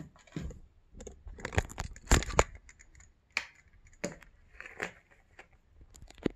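Handling noise from the phone camera being moved around: rubbing and rustling with a string of light clicks and knocks, loudest in the first half.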